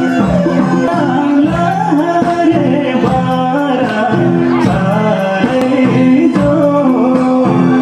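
Music: a melodic singing voice over instruments with light percussion.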